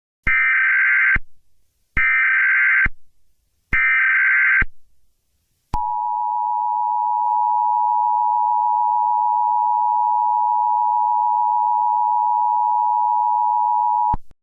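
Emergency Alert System tones: three short bursts of SAME header data, a buzzy digital warble about a second each, followed by the two-tone attention signal, a steady dual-pitched tone held for about eight seconds that cuts off abruptly.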